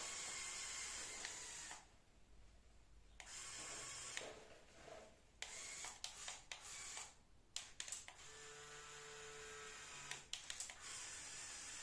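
Faint whirring of LEGO Power Functions electric motors and plastic gears, starting and stopping in short runs with scattered clicks over a steady hiss. One steady motor whine lasts about a second and a half near the end.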